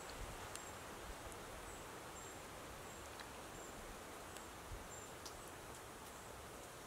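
Quiet woodland ambience: a steady outdoor background hiss with short, high chirps repeating about twice a second, and a few faint ticks.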